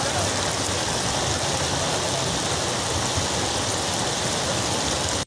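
Heavy monsoon rain falling steadily onto standing water, an even wash of noise, with a low steady hum underneath.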